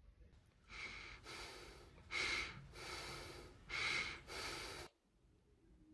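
A person breathing hard in and out through the nose and mouth, about six short noisy breaths, straining to hold back a cough. The breathing cuts off suddenly near the end.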